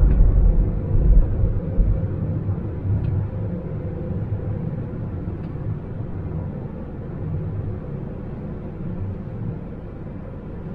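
Low road and engine rumble heard inside a moving car's cabin, heaviest in the first two seconds, then a steadier, slightly quieter drone.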